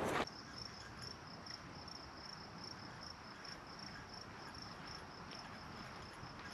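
Faint, high-pitched insect chirping, one steady pitch pulsing about three times a second, over a quiet outdoor background.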